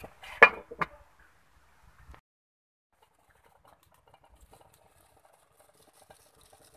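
A glass lid set down on a wok with two sharp clinks about half a second in, then teriyaki sauce bubbling faintly under the lid as the chicken simmers.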